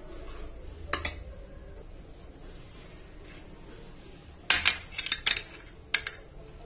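Crockery clinking as a small side plate is set down beside a dinner plate: one sharp clink about a second in, a quick cluster of clinks and knocks past the middle, and another clink near the end.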